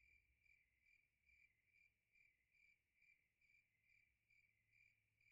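Near silence, with only a very faint high tone pulsing about twice a second over a faint low hum.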